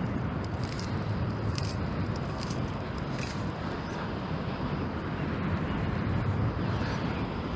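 Steady wind and surf noise on the shore, with a few light water splashes in the first three seconds.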